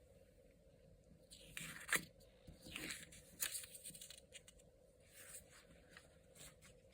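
Soft rustling and scraping handling noises in short irregular bursts, with a sharp click about two seconds in.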